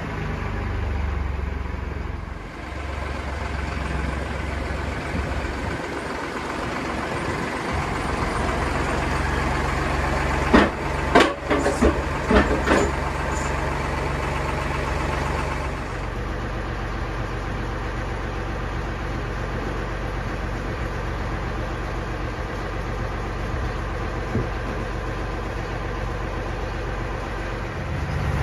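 An engine running steadily, its speed shifting a few times, with a quick cluster of sharp knocks about halfway through.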